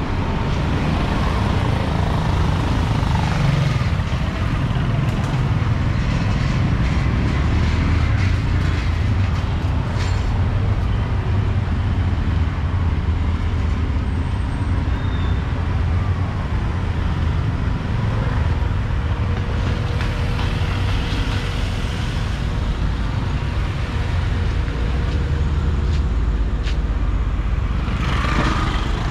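Steady street traffic noise: a continuous low rumble of passing engines with an even wash of background sound and a few faint clicks, rising briefly near the end.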